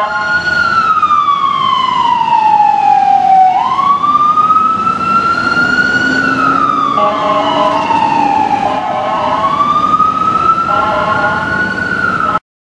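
Whelen electronic siren on a Boston EMS International TerraStar ambulance sounding a slow wail, falling and rising twice, with the deep Howler low-frequency tone beneath it. The steady, buzzing Bullhorn air-horn tone is sounded over the wail briefly about seven seconds in and again near the end. Everything cuts off suddenly just before the end.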